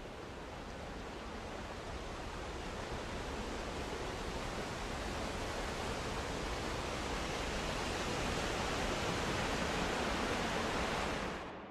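A steady rushing hiss that swells slowly louder, then fades out quickly near the end.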